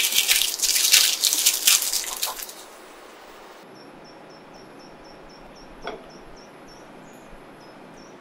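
Parchment paper crinkling and rustling as it is wrapped tightly around a tortilla wrap, for about two and a half seconds. After that, only faint high chirps repeating about three times a second, with one soft knock.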